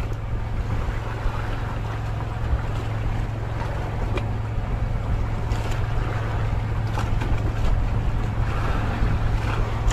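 A small fishing boat's engine running steadily as a low drone, with water and wind noise around it.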